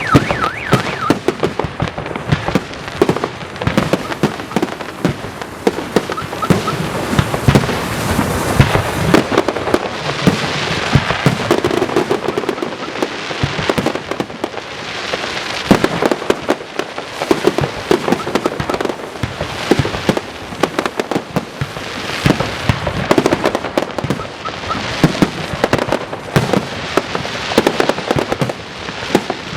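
Fireworks display: a continuous barrage of exploding shells, dense bangs mixed with crackling that swells and fades in waves.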